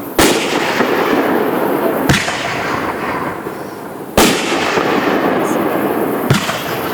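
Fireworks bursting overhead: four sharp booms about two seconds apart, over a continuous background din.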